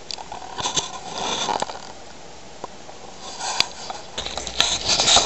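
Handling noise: irregular scraping and rustling with light clicks and knocks as the camera is moved around the oscilloscope. It is busier about a second in and again near the end.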